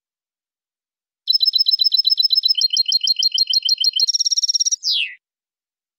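European goldfinch singing one phrase: a fast trill of clear repeated notes that shifts to a second trill partway through, then a brief buzzy run and a quick downward-slurred note near the end.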